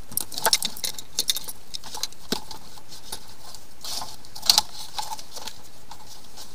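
Scattered light metallic clinks and rattles as a flexible-shaft drain cleaner's chain-knocker head and its cable are handled around the sink drain pipes, over a steady background noise.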